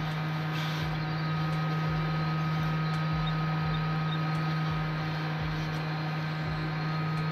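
Steady low mechanical hum with a thin, steady higher whine above it, unchanging throughout.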